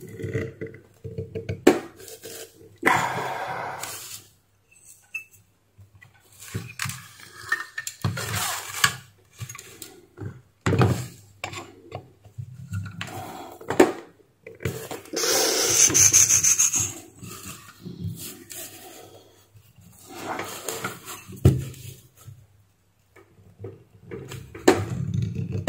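Hands handling and twisting the metal parts and wiring of a disassembled electric steam iron: irregular rubbing and scraping with scattered clicks, the longest and loudest scrape a little past halfway.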